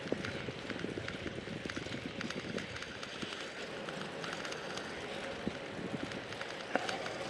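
Riding noise of a bicycle on a cycle path: tyres rolling with many small irregular rattles and clicks, over a faint steady hum.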